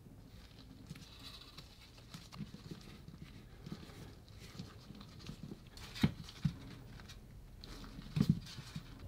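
Gloved hands handling silicone putty and pressing a putty stamp onto a cutting mat: faint rubbing and handling noise with a few soft taps, the loudest about six seconds in and two more just after eight seconds.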